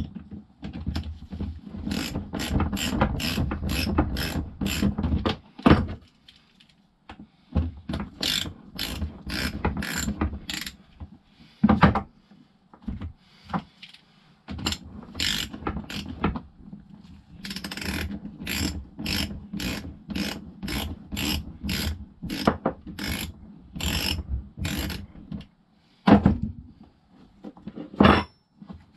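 Socket ratchet wrench clicking in repeated runs of quick back-and-forth strokes, with short pauses between runs, as bolts are worked loose.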